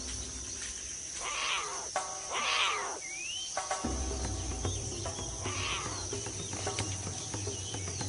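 Rainforest ambience: a steady high insect chorus under background music, with three short breathy noises at about one and a half, two and a half and five and a half seconds in, and a short rising bird chirp about three seconds in.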